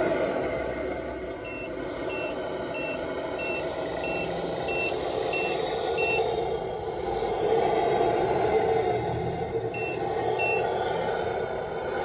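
Radio-controlled tipper truck reversing with its electronic back-up beeper sounding: eight short high beeps about one and a half a second, then two more about ten seconds in. Under them runs a steady drone from the truck's drive.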